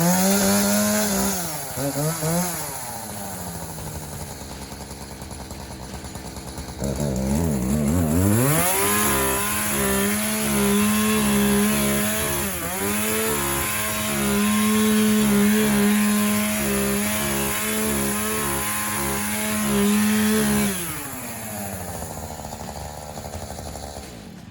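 Chainsaw revving briefly, dropping to idle, then held at high throttle for about twelve seconds with small dips while cutting through a giant pumpkin, before falling back to idle.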